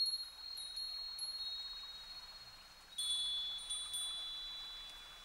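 Metal wind chimes ringing with clear high tones: a few strikes in the first second and a few more about three seconds in, each ringing on and slowly fading.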